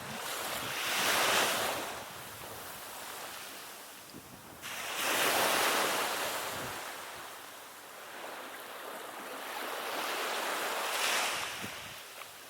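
Waves breaking on a shore: three swells of surf, about one every four to five seconds, each rising and washing away.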